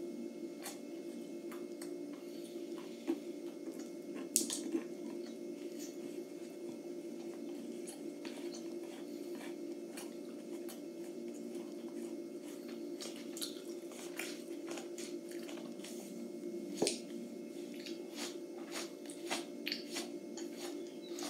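A person chewing and eating, with scattered wet mouth smacks and small clicks. A steady low hum runs underneath.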